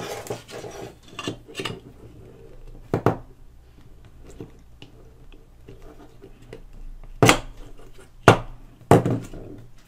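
Hands fitting a phonograph pickup head and its wires into a metal tone arm: a light rustle, then a few sharp clicks and knocks, the loudest near the end.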